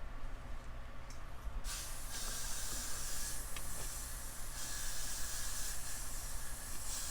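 Aerosol spray can hissing in one long spray from about a second and a half in, applied to the back of a wig, with brief dips in the hiss.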